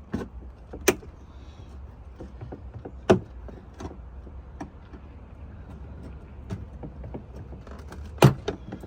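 Scattered clicks and knocks of hand tools and hard plastic car-door trim being handled and pried, the loudest about three seconds in and near the end, over a low steady rumble.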